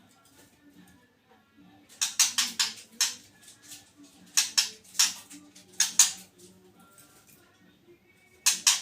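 White-rumped shama (murai batu) giving harsh, rasping chatter calls in short clusters of several bursts each, the kind of aggressive call played as a lure to provoke another shama into singing. A faint low hum sits underneath.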